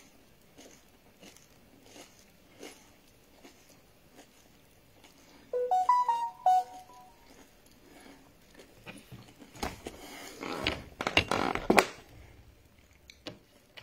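A mostly quiet room with faint clicks; about six seconds in, a short electronic jingle of a few stepped notes plays. Near the end comes a couple of seconds of loud rustling and clattering handling noise.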